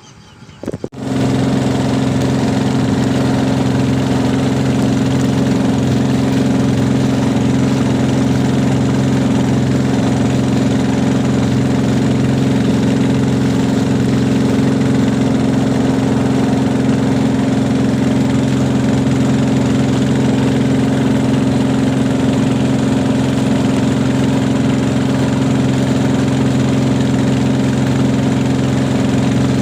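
Small engine running loudly and steadily at constant speed, cutting in abruptly about a second in.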